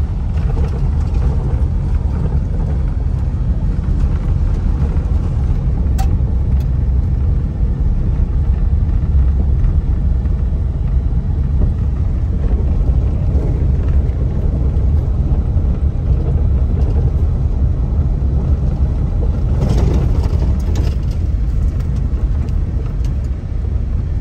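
Car driving on a rough gravel track, heard from inside the cabin: a steady low rumble of engine and tyres on gravel. There is a sharp click about six seconds in and a short run of crackles around twenty seconds in.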